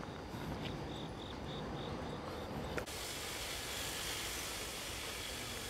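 An insect chirping in short, regular high-pitched pulses, about three a second, over quiet outdoor ambience. About halfway through it cuts off abruptly and gives way to a steady hiss of outdoor noise.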